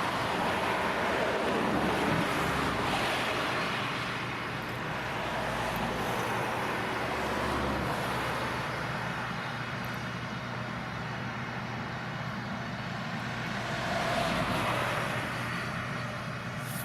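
Heavy farm machinery running steadily: a constant low engine hum under a broad rushing noise, swelling a little a couple of seconds in and again near the end.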